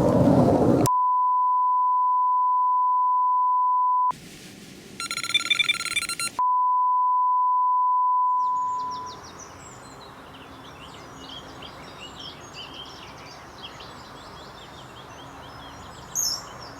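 A steady pure electronic tone, like a dial tone, broken after about three seconds by a couple of seconds of electronic beeping. The tone then returns and fades out around eight seconds in, leaving birds chirping over faint outdoor background.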